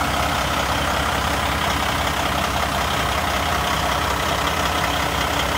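Semi-truck diesel engine idling steadily.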